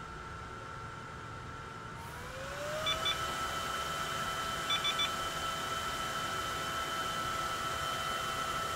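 Small high-speed fan of a 1U server-style CPU cooler whining with several steady tones. About two seconds in it speeds up, its pitch gliding up and holding higher as it gets louder. Two short electronic beeps come about three seconds in, then three more about two seconds later.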